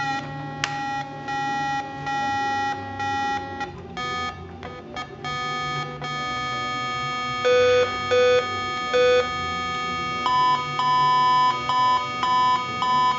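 Russian portable electronic keyboard playing bright, buzzy organ-like tones: held notes for the first few seconds, then short notes pressed on and off about twice a second.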